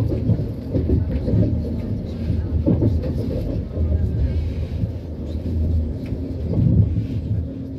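Siemens Desiro RUS "Lastochka" electric train running at speed, heard from inside the carriage: a steady low rumble of wheels on the rails with scattered knocks.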